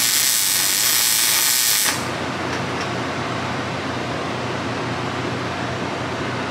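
A loud, steady hiss that cuts off sharply about two seconds in, leaving a lower, steady hum.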